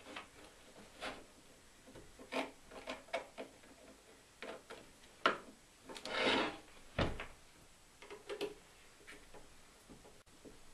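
Workshop handling sounds: a screwdriver tightening coarse-thread Torx screws into a Stihl 023 chainsaw's plastic housing, with scattered clicks and knocks of tool and parts. About six seconds in comes a scraping rub as the saw body is turned over on the wooden bench, then a thump as it is set down.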